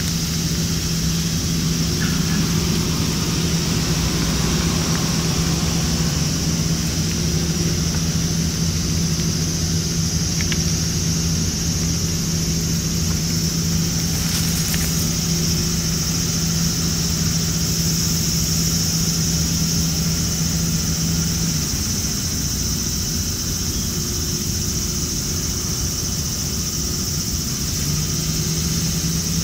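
A steady low mechanical hum, like an idling engine, that drops out about twenty seconds in and comes back near the end, over a constant high-pitched hiss.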